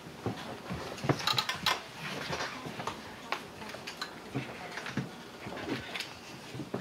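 Irregular clicks, knocks and shuffling of people moving about and handling things, with footsteps, including a quick run of clicks about a second in.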